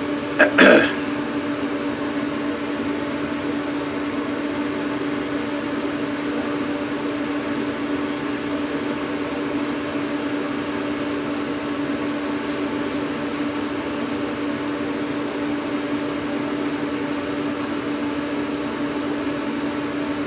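Straight razor scraping through lathered stubble in short faint strokes, under a loud steady hum like a fan. A brief loud sound about half a second in.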